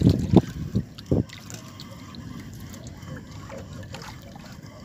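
Water lapping and trickling against a small wooden outrigger boat's hull, with a few dull knocks in about the first second.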